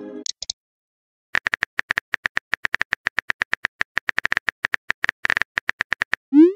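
Texting-app keyboard sound effect: a rapid run of short, sharp key clicks as a message is typed out. A chime fades out at the very start, and a short rising swoop, the message-send sound, comes just before the end.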